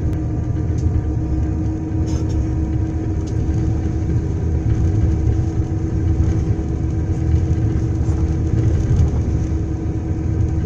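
Cabin noise inside a moving coach bus: a steady low rumble of engine and tyres on the road, with a steady hum running over it.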